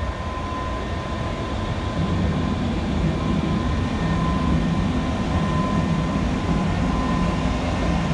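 Steady vehicle rumble with a constant high hum running through it, growing louder about two seconds in.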